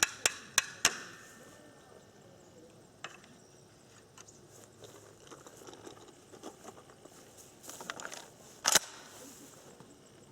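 A quick run of sharp clicks in the first second, then quiet handling ticks, then a single loud shot from a Remington 887 pump shotgun near the end, fired at an exploding clay target.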